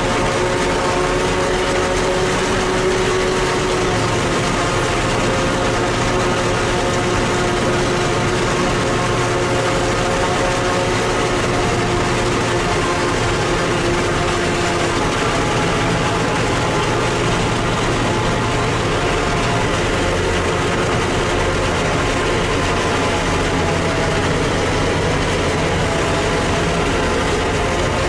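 Steady running of corn-harvesting machinery heard from inside a tractor cab: the tractor engine and a self-propelled forage harvester chopping corn alongside, a constant drone with a held whine of several tones over it.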